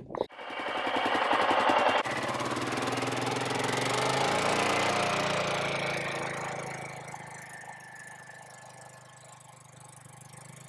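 Four-wheeler (ATV) engine running with a rapid, even putter; it grows louder toward the middle, then fades away.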